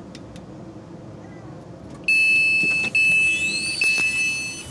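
Train passenger-door warning tone sounding as the doors open after the Open button is pressed: a loud steady high beep that starts about two seconds in, is broken twice for an instant and stops shortly before the end. A rising whine sounds over it near the end.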